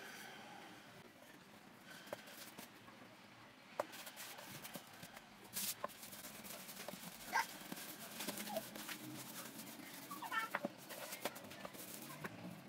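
Wooden rolling pin rolling brioche dough out on a floured bamboo cutting board: soft rolling and rubbing with small knocks of the pin on the board. A few short high squeaks come in about halfway through.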